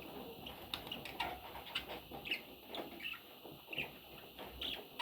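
Pet budgerigars chirping: short, high chirps about twice a second, with a few soft clicks between them.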